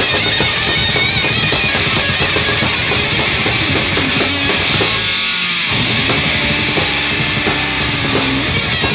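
Thrash metal band playing live, with distorted electric guitars and drums going at full pace. The low end drops out briefly about five seconds in, then a held, bending note rings over the band near the end.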